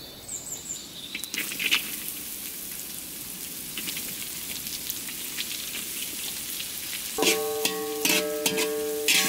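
Sliced petola (luffa gourd) dropped into hot oil in a wok, sizzling steadily as it fries, with a spatula stirring and scraping. Background music with a plucked string instrument comes in about 7 seconds in.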